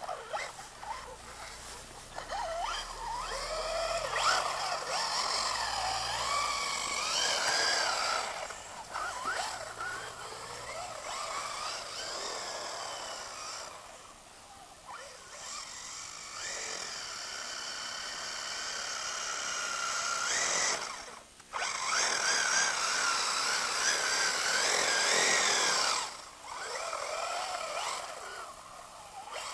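Electric RC buggy's 1800kV brushless motor whining, its pitch sliding up and down with the throttle. The whine drops away briefly three times, once cutting off sharply.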